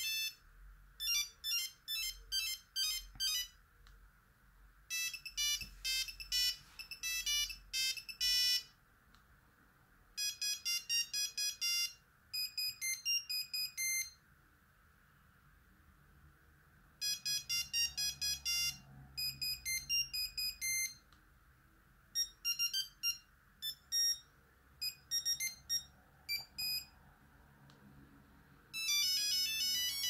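Nokia 3310 playing its built-in monophonic ringtones through its small speaker: short beeping tunes in bursts of one to three seconds with pauses between, as one ringtone after another is previewed. A denser, louder tune starts near the end.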